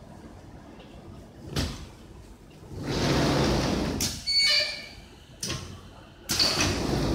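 High-frequency PVC film welding machine running through press cycles: several bursts of hissing, rumbling noise, the longest lasting about a second, with a brief high-pitched whine in the middle.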